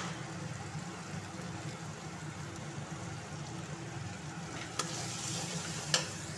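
Spiced onion-tomato masala frying in oil in an aluminium kadai over a low, steady rumble, with two sharp clicks of a perforated metal spatula against the pan near the end.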